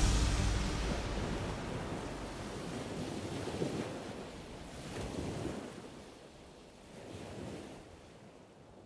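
Wind and sea wash heard on deck of a sailing catamaran under way: a steady rushing noise that fades gradually to a faint hush.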